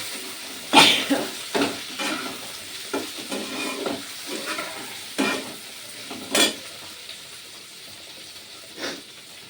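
Eggs frying and sizzling in hot oil in a kadai, with a spatula stirring and scraping against the pan. A few short, louder clatters break in, the loudest about a second in.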